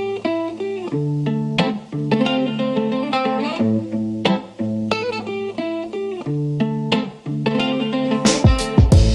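Background music: a plucked guitar tune over a steady bass line, with drum hits coming in near the end.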